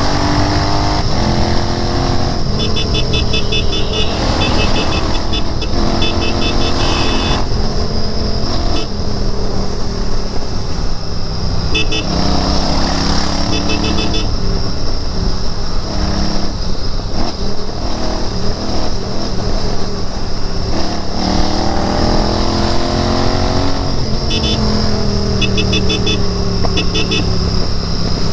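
Royal Enfield Interceptor 650's parallel-twin engine running on the move, its revs rising and falling several times as it accelerates and shifts. Clusters of short high-pitched beeps come and go through it.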